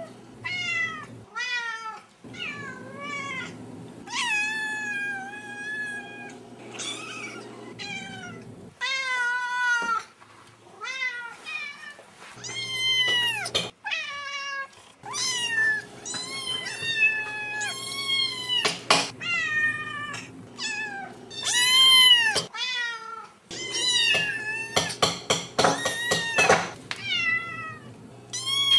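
A cat meowing over and over: a long string of separate meows, some short and some drawn out, bending up and down in pitch. A quick run of clicks comes about 25 seconds in.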